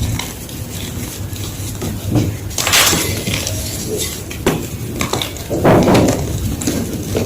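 Block of fresh gym chalk crunching and crumbling in several crisp crunches, the loudest about three seconds in and again near six seconds.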